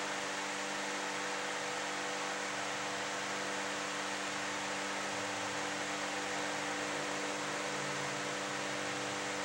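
Steady hiss with a low electrical hum underneath, and no other sound.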